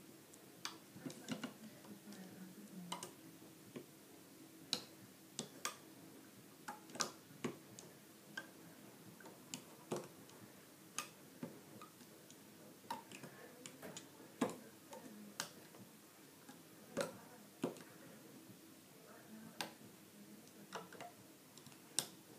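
Faint, irregular light clicks and snaps as a plastic hook works rubber bands up and over the pegs of a plastic band loom, a few clicks a second with uneven gaps.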